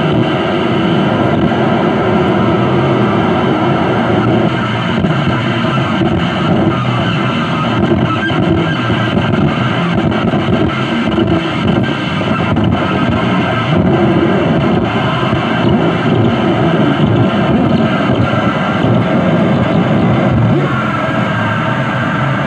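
Harsh noise music played live on electronics: a dense, continuous wall of distorted noise through effects units, with no beat or melody.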